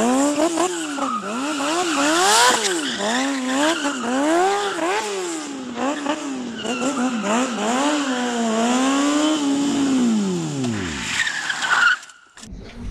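High-revving racing-type engine revved up and down over and over in quick rises and falls of pitch, then winding down and dying away about ten seconds in.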